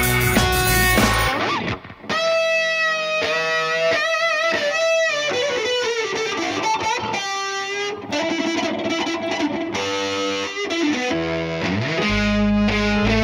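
Recorded song with electric guitar. About a second and a half in, the full band drops away and the guitar plays on nearly alone with bent, wavering notes. The band and bass come back in near the end.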